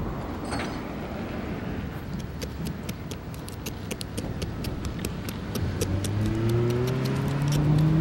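Razor blade scraping cured crack-repair resin off windshield glass, a rapid run of sharp ticks at about five a second. Near the end a vehicle engine revs up, its pitch rising, louder than the scraping.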